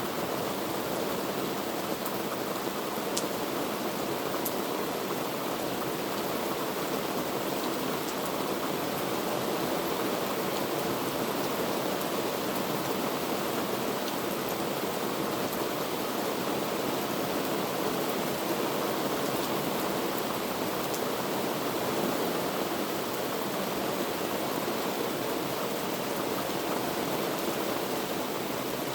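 Heavy rain falling in a dense, steady hiss, with a few sharper drop ticks now and then.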